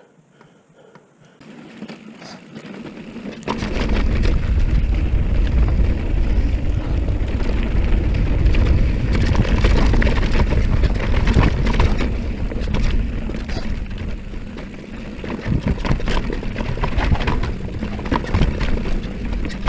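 Haibike electric mountain bike descending a rocky dirt trail, heard from a handlebar-mounted camera: wind rushing over the microphone as a heavy low rumble, with the bike knocking and rattling over bumps. It starts quiet and grows loud over the first few seconds as the bike gets under way.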